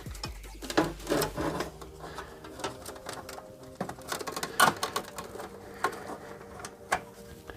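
Scattered clicks, knocks and rustling as a Thermaltake TR2 600W power supply and its cables are handled and worked into a metal PC case. The sharpest knocks come a little past halfway and near the end.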